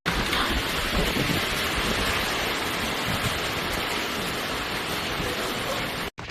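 Steady rushing noise of falling water, starting abruptly and cutting off suddenly near the end.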